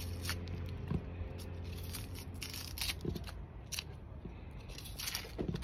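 Small kitchen knife scraping and tearing the dry, papery skin off an onion in short crackly strokes, a few at a time, over a low steady hum.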